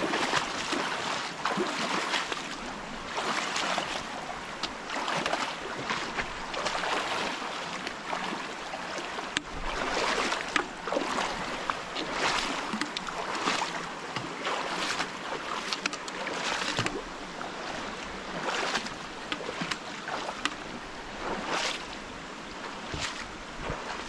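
Feet wading across a shallow rocky stream, splashing about every second or two over the steady rush of running water.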